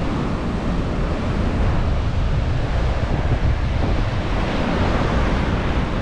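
Ocean surf washing steadily onto a beach, with wind buffeting the microphone and adding a low rumble.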